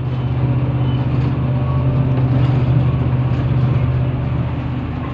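Engine running steadily at an even speed, a low constant hum that eases slightly near the end.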